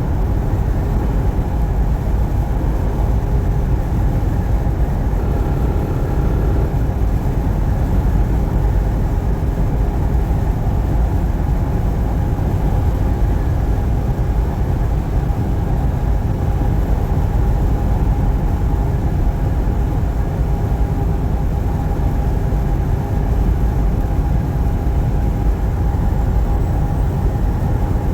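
Steady driving noise of a semi-truck on the road: a low, even rumble of engine and tyres with a faint steady hum above it.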